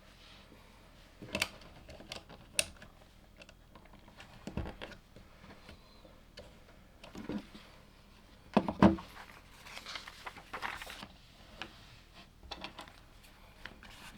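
LEGO plastic pieces being handled and snapped together: scattered sharp clicks and taps, the loudest a cluster about nine seconds in, with some rustling.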